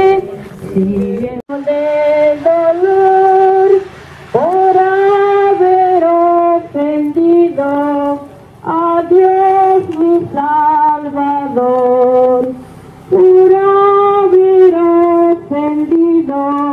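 Women's voices singing a hymn, one melody line in held notes with short breaks between phrases.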